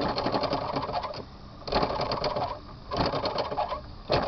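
Meccano model steam engine chuffing rapidly in short spurts of about a second, stopping and starting again several times; it is running poorly.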